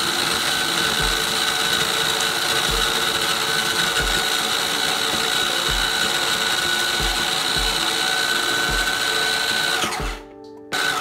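Electric food chopper running steadily with a high motor whine as it grinds Oreo cookies into crumbs, then stopping abruptly near the end.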